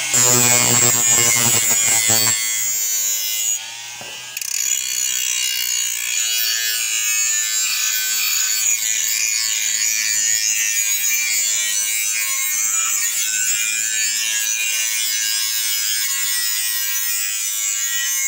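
Handheld electric grinder with a small grinding wheel running against the steel blades of a chaff cutter, sharpening them: a steady high whine with a grinding hiss. It is louder, with a low hum, for the first two seconds, and drops away briefly about three and a half seconds in before running on steadily.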